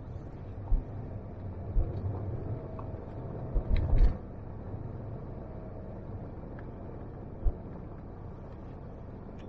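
A Jeep driving along a dirt road: a steady low engine and tyre rumble, with a few short knocks from bumps in the road, the loudest cluster about four seconds in.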